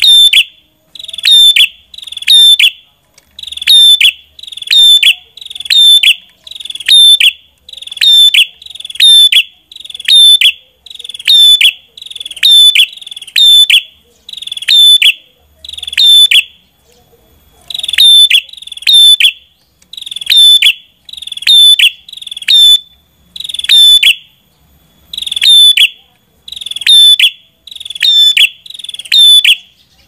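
Ashy tailorbird (prenjak kepala merah) calling: loud, sharp, high notes repeated about every half second, with a pause of over a second a little past the middle.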